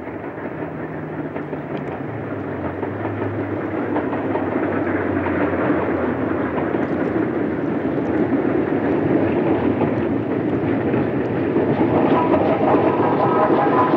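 LMS Black Five steam locomotive 5407 hauling a passenger train, its rumble growing steadily louder as it approaches. Several thin steady higher tones join in near the end.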